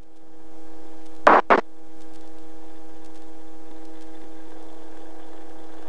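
Robinson R22 helicopter running on the ground, a steady pitched hum from the engine and rotor drivetrain in the cockpit. Two short sharp clicks come a little over a second in.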